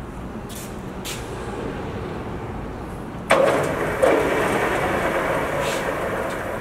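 Enco 14" x 40" geared-head engine lathe starting up: its drive cuts in suddenly about three seconds in, jumps again a moment later, then runs with a steady mechanical whir.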